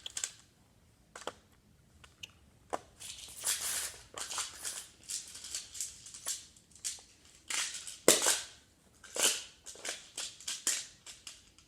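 Plastic magnetic building tiles clicking and clattering as pieces are picked up, shuffled and snapped together: a run of irregular sharp clicks mixed with short rustling bursts, the loudest clack about eight seconds in.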